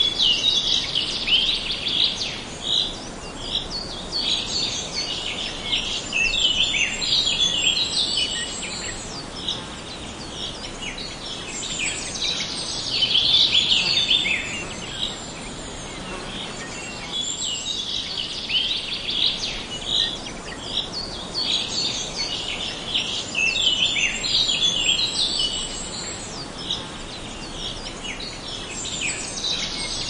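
A chorus of songbirds chirping and twittering: many short high calls overlapping, swelling and fading every few seconds.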